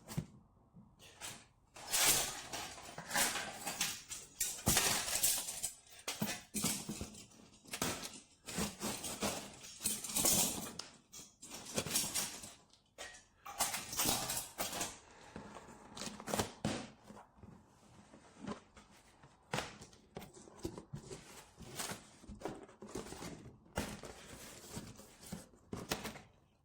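A cardboard box being opened by hand: tape and cardboard ripping, scraping and rustling in uneven strokes, with knocks and clicks of handling.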